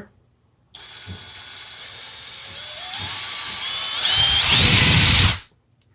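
DeWalt DCD800 brushless cordless drill run on its variable speed trigger: the motor starts slowly under a second in and whines steadily higher and louder as the trigger is squeezed further, then stops suddenly about five and a half seconds in.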